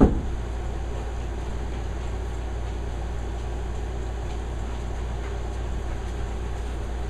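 Steady low hum and fan noise of a room air conditioner running, with a single sharp knock right at the start.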